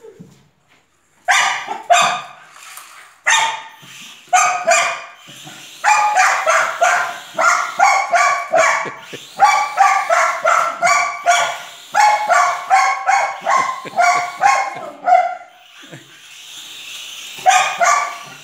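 A small dog barking repeatedly in sharp, rapid runs of several barks a second, agitated at a toy quadcopter drone moving near it. The barking starts about a second in and pauses briefly near the end before starting again.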